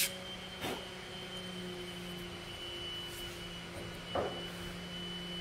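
Steady faint electrical hum, broken twice by brief handling sounds of small wooden pieces being picked up and set down on a cutting mat: once just under a second in, again a little past four seconds.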